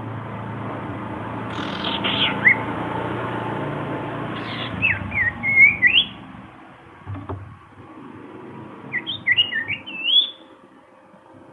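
Common iora (cipow) calling to a rival: three short runs of quick whistled notes that slide up and down. A steady low hum lies under the first half and fades away about halfway through.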